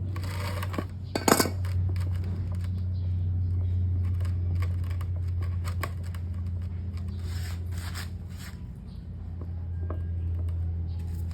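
Metal tools clinking and tapping on a differential as its adjuster is turned, with scattered sharp clicks, the loudest a little over a second in. A steady low hum runs underneath.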